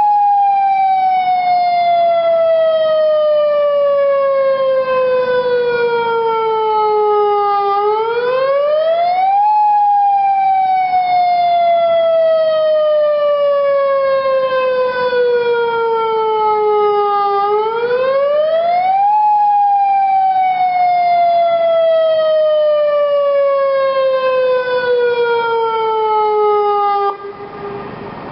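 Federal Signal Modulator 1004 electronic tornado warning siren sounding a test. Its tone sweeps up quickly, then glides slowly down over about eight seconds, three times in a row. On the last fall it holds low for a moment, then cuts off suddenly about a second before the end.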